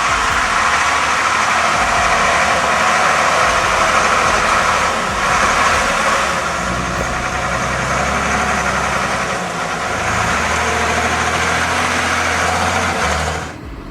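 A heavy vehicle's engine running loudly, its note shifting a few times. The sound cuts off abruptly near the end.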